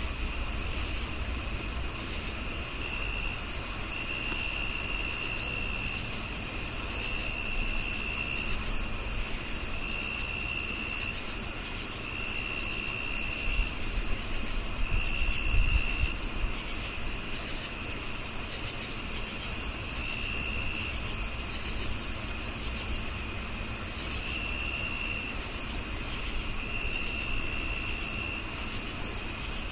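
A chorus of crickets. One keeps up a steady, high, unbroken trill, another gives short, higher chirps a few times a second, and a lower trill comes and goes in spells of a second or two. Under them is a low rumble that swells briefly about halfway through.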